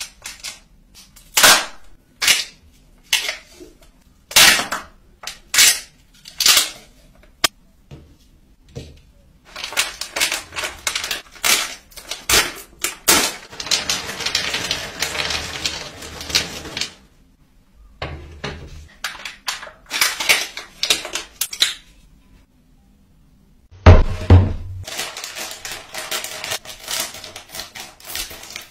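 Plastic Kinder Joy egg shells clicking and snapping as they are handled and opened, a string of sharp separate clicks. Then crinkly candy wrappers rustling and candies tipping out onto a bamboo tray, with a louder knock about three-quarters of the way through.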